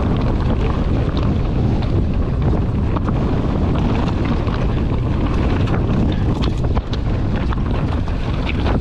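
Wind buffeting the camera microphone as a mountain bike descends a dry, stony dirt trail at speed. Scattered short clicks and knocks from the bike and the stones of the trail.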